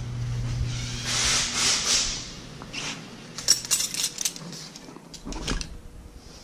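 Metal wrenches clinking against each other as they are picked up off a rubber floor mat, a cluster of sharp clinks about three and a half seconds in and a few more near five and a half. A short hiss comes about a second in.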